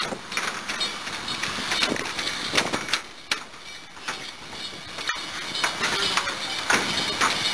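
Handling noise from a handheld camera, with rubbing, knocks and footsteps as the walker moves along a bridge walkway, over steady outdoor city noise. Near the end a train's clatter and wheel squeal start to rise.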